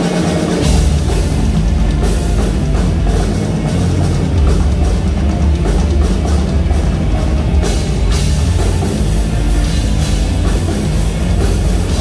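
Live rock band playing loud on electric guitars, bass and drum kit; the full band, with heavy drums and bass, comes in about half a second in.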